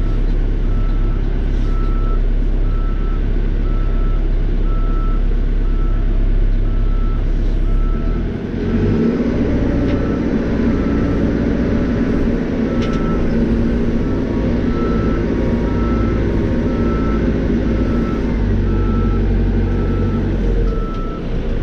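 Caterpillar 430E backhoe loader's diesel engine running under load, with its reversing alarm beeping a little more often than once a second and pausing briefly in the middle. About eight seconds in the engine note rises and thickens as the machine works harder.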